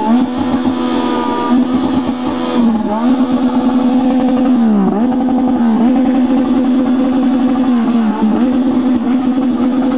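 Motorcycle with an open exhaust pipe revved hard and held on the rev limiter, its pitch pinned flat and stuttering at the cut. It drops briefly a few times and snaps straight back up to the limiter.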